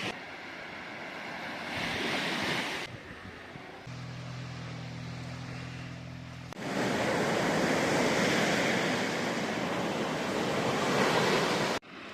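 Sea waves washing onto the shore, heard in several clips joined by abrupt cuts, the fullest surge in the second half. In one stretch around four to six seconds in, a steady low motor hum runs under the quieter water.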